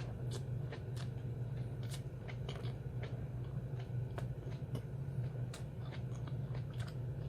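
Close-mouthed chewing of a lettuce wrap filled with grilled meat and raw onion: irregular small crunches and wet clicks. A steady low hum runs underneath.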